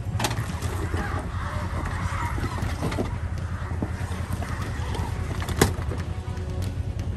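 Jeep Wrangler Rubicon crawling slowly over rock and loose stones. Its engine rumbles low and steady, the tyres crunch and scrabble on the rock, and stones knock now and then, with one sharp knock about three-quarters of the way in.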